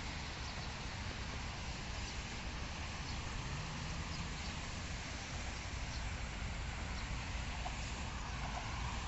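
Steady outdoor ambience: wind rumbling on the microphone over a low hum of distant traffic, with a few faint high chirps now and then.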